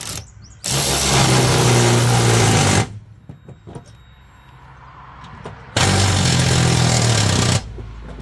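Cordless electric ratchet wrench running in two bursts of about two seconds each, spinning the nut onto a new mower-deck spindle.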